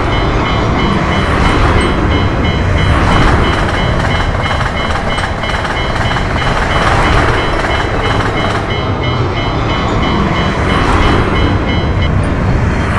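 Japanese level-crossing warning bell ringing its steady repeating "kan-kan" over the rumble of a passing Nishitetsu electric train. The bell stops near the end while the train noise carries on.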